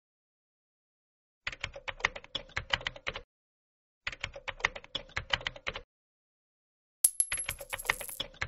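Keyboard typing sound effect: three short runs of rapid key clicks separated by pauses, matching text being typed out on screen. A thin high tone with a hiss starts abruptly about seven seconds in, under the last run.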